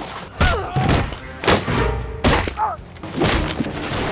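A quick run of blows to the head: four heavy thuds about a second apart, with short grunts and cries between them.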